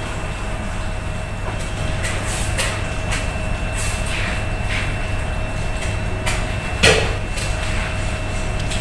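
Electric bone-cutting saw running with a steady hum and whine, with a handful of irregular sharp knocks and scrapes as frozen oxtail is worked through it; the loudest knock comes about seven seconds in.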